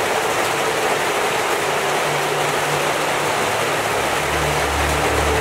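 Heavy rain pouring steadily onto standing water and leaves, an even hiss with no break.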